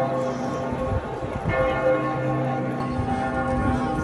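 Large church bell in the cathedral bell tower tolling slowly. A fresh strike comes about a second and a half in, with the ring of the previous strike still sounding beneath it.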